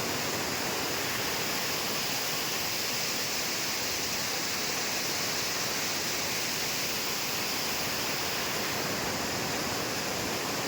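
Waterfall pouring: a steady rushing of water that holds even throughout, with no breaks.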